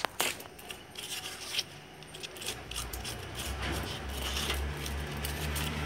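Rubbing, scraping and light knocks as a cardboard template and a piece of cut tyre rubber are handled and pushed around on a workbench. A low steady rumble rises from about halfway through and grows louder.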